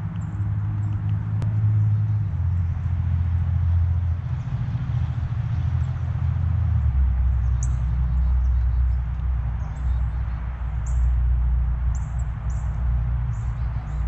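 Small songbirds giving short, high chip calls, several in quick succession in the second half, over a loud steady low rumble and hiss.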